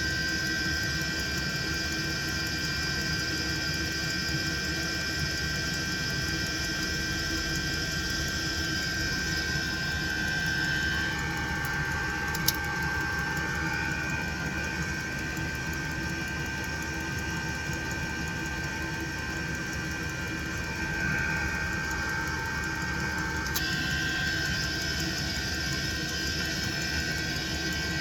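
Chinese diesel air heater running steadily: a combustion roar under a constant high whine from its blower. About 11 seconds in the upper part of the sound changes character, with a short click soon after, and it switches back near 24 seconds.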